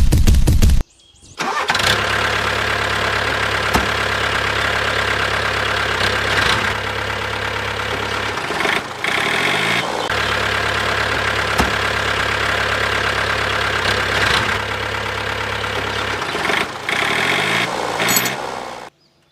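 A small motor running steadily after a short loud rattling burst at the start. It briefly dips twice and comes back up with a rising pitch, then stops suddenly near the end.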